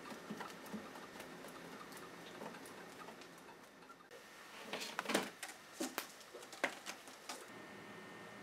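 A kitten scrabbling and batting on a plush cat-tree perch: soft scratches and rustles, with a few louder scuffs from about five to seven seconds in.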